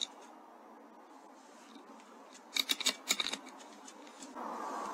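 A .22 air rifle fires on a rat: a quick cluster of sharp cracks and clicks about two and a half seconds in, lasting under a second. A steady hiss comes up near the end.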